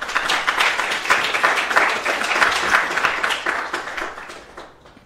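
Audience applauding, starting abruptly and dying away over the last second or so.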